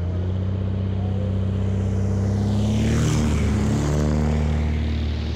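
Piper PA-25 Pawnee's piston engine and propeller getting louder as it flies in low and passes directly overhead about three seconds in, the pitch dropping as it goes away.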